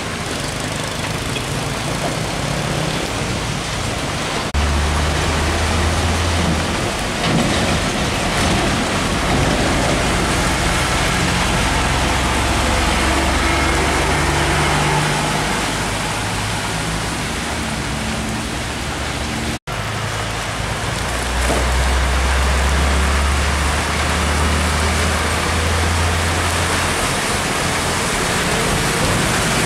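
Heavy rain pouring onto a wet road, a dense steady hiss, while diesel trucks drive past: a container tractor-trailer and trucks towing drawbar trailers, their engines swelling in a low rumble several times as they come by. The sound drops out for an instant about two-thirds of the way in.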